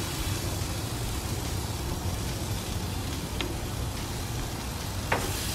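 Bacon-wrapped chicken sizzling on a hot gas grill grate, a steady hiss, with two light clicks of metal tongs on the grate partway through.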